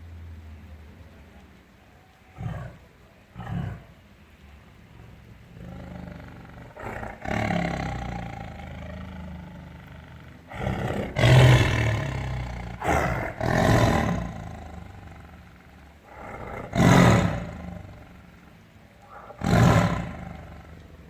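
Tiger roaring: two short grunts a couple of seconds in, a long low rumbling growl, then a series of loud roars, the loudest about halfway through and two more near the end.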